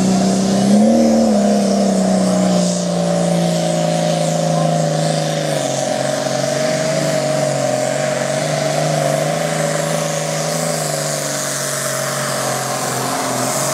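Diesel engine of a John Deere pulling tractor running flat out under full load as it drags a weight-transfer sled down the pull track. Its pitch rises briefly about a second in, then sags slowly and holds steady as the sled's load builds.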